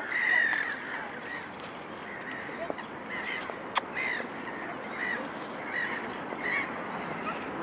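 A flock of waterbirds calling: short calls repeating about once a second, with a single sharp click about halfway through.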